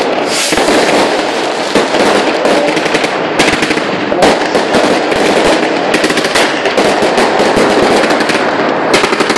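Many fireworks rockets and firecrackers going off at once: a dense, unbroken crackle of rapid bangs and pops.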